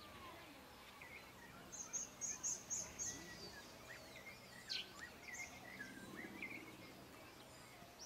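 Small birds chirping outdoors against faint background noise. A quick run of five short, high chirps comes about two seconds in, followed by scattered twittering calls.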